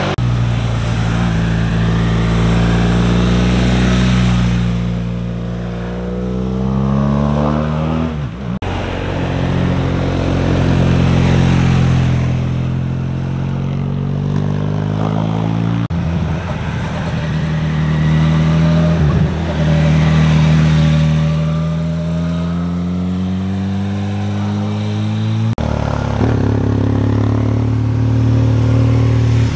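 Motorcycle engines heard from the roadside as bikes ride through a hairpin bend one after another, the engine note dropping as each slows into the curve and rising as it accelerates out. The sound switches abruptly from one bike to the next three times.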